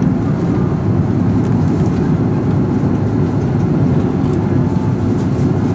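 Steady in-flight cabin noise of an Airbus A330-300 at cruise: an even, loud low rumble of engine and airflow noise with no change in pitch.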